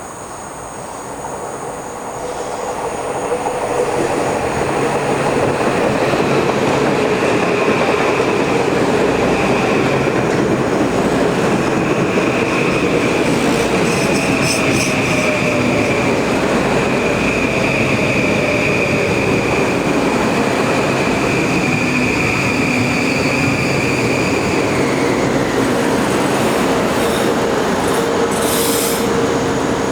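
Passenger train running past at speed. It grows louder over the first few seconds, then holds a steady loud rush of wheels on rail with a high steady whine that fades about 25 seconds in.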